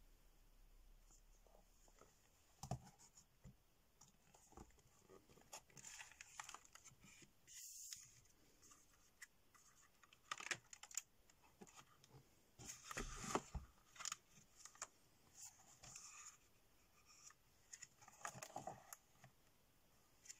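Faint handling of paper and sticker sheets: sheets being turned over and set down, with scattered soft clicks and rustles.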